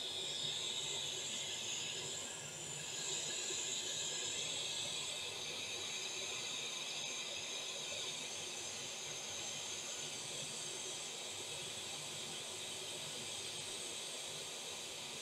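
Hot air rework station blowing a steady hiss of hot air through its nozzle onto a motherboard chip, reflowing the solder to seat the chip.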